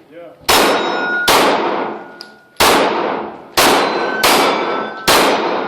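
Pistol shots at steel targets: six sharp reports at uneven spacing, each followed by the clang of the struck steel plate ringing out.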